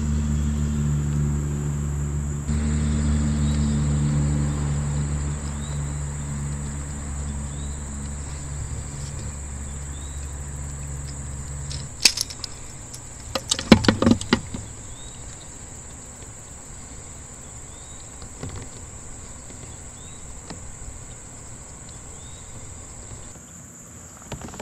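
Insects droning in one steady high note, with a low steady hum underneath for about the first half. A few sharp clicks and clatters come around the middle and again near the end.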